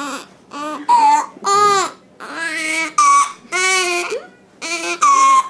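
Newborn baby crying in a rapid run of short, high-pitched wails, each under a second, with quick breaths between them.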